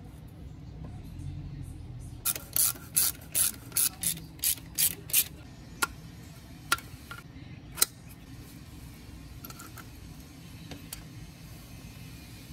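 A hand ratchet working a fastener on the engine: a run of about nine quick ratcheting strokes, roughly three a second, then three single clicks about a second apart.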